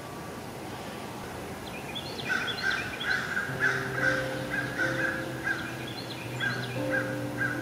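A bird calling over and over in short, sharp notes, starting about two seconds in. The notes come in a quick run at first and then slow to an even, spaced-out series.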